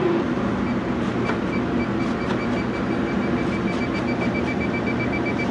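Electronic refrigerant leak detector beeping as it picks up leaking R-404A refrigerant in the prep table's cold rail. A few high beeps come about a second in, then quicken into rapid, steady beeping, over a steady machinery hum.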